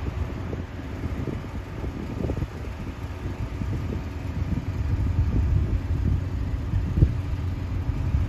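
Wind buffeting a phone's microphone, giving a gusty low rumble with a faint steady drone underneath.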